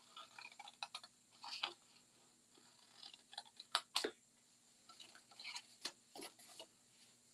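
Small scissors snipping notches into scored paper: a run of short, irregular snips mixed with paper rustling, with the sharpest snips about four seconds in.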